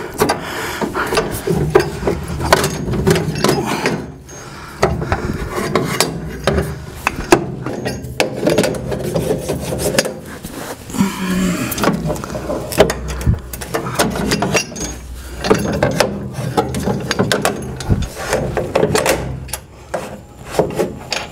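Caster and its foot-pedal assembly being twisted and fidgeted into the steel base of a Ridgid R4512 table saw: irregular scraping and rubbing of metal on metal, with many sharp knocks and clicks.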